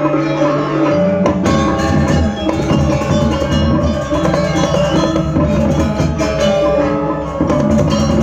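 Balinese gamelan ensemble playing a bebonangan-style piece: dense, interlocking metal gong and metallophone tones over drums. About a second in, the low register changes as a deeper, fuller part comes in.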